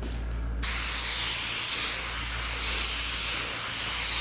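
Spray gun spraying a light coat of dye: a steady hiss that switches on abruptly about half a second in.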